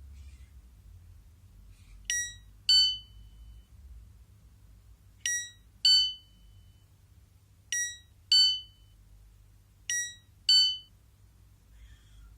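Devolo Home Control siren sounding an electronic two-note chime four times, one pair about every two and a half seconds. The second note of each pair is louder and rings on longer.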